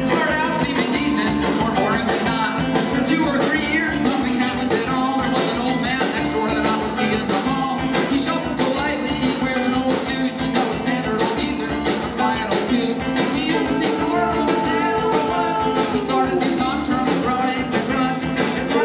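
Live rock band playing: guitars over a fast, steady drumbeat.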